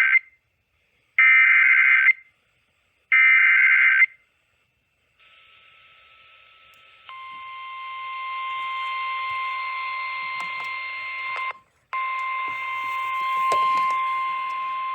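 EAS alert opening over noisy radio reception: the SAME header, three short bursts of screeching data tones about a second apart, then after a few seconds of faint hiss the steady 1050 Hz NOAA Weather Radio warning alarm tone, broken once by a short dropout. The alert is a severe thunderstorm warning.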